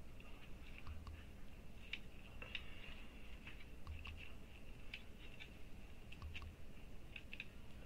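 Faint, scattered crackling and rustling of synthetic wig hair being handled and straightened by hand on a wig stand.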